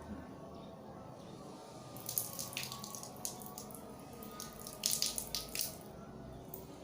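Water splashing and dripping in two short bursts, about two seconds in and again about five seconds in, as a man rinses his nose and throat with plain water, drawing it up through the nose and spitting it out.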